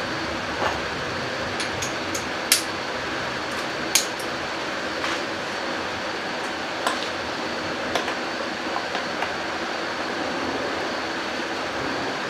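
Metal hand tools clinking, with sockets and an extension being handled from a socket tray and fitted to a ratchet, in a handful of sharp clinks spread over several seconds. A steady background hum runs underneath.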